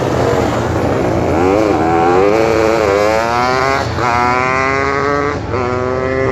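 Two drag-racing motorcycles launching off the line, their engines rising steeply in pitch and dropping back at gear changes about four and five and a half seconds in.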